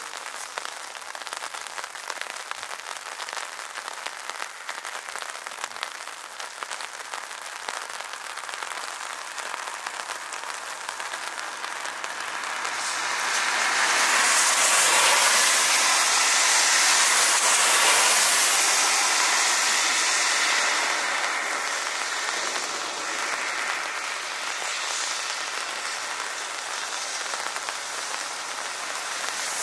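Steady hiss of rain, joined by the noise of a distant aircraft that swells about twelve seconds in and eases off after about twenty seconds.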